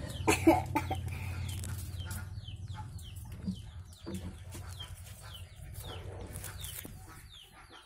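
Domestic chickens clucking, a string of short, high calls that fall in pitch, repeating about twice a second. A sharp knock about half a second in is the loudest sound, over a low rumble that fades away.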